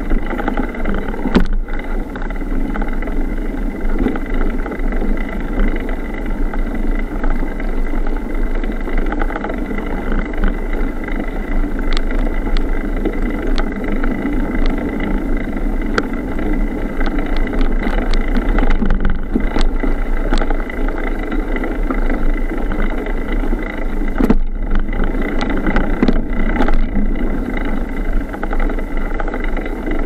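Kron XC 500 hardtail mountain bike riding down a dirt forest trail: a steady rumble and rattle of tyres and frame on the ground, with scattered sharp knocks and clatters as it goes over bumps.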